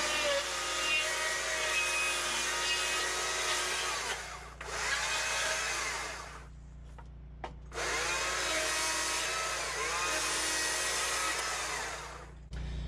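Small-bar chainsaw cutting into a wooden carving, its revs rising and falling as it slims the trunk. It drops off about six and a half seconds in, then revs back up a second later and cuts again until just before the end.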